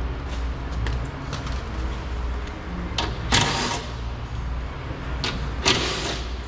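Hand work on a car's rear door: a few light clicks and two short scraping, rustling noises, about three seconds in and again near the end, over a steady low rumble.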